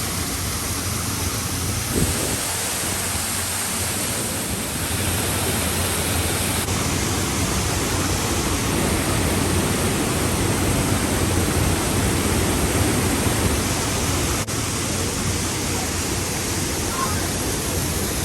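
Steady rushing of mountain water, a stream or waterfall. The noise changes its tone abruptly a few times, and there is a single short click about three-quarters of the way through.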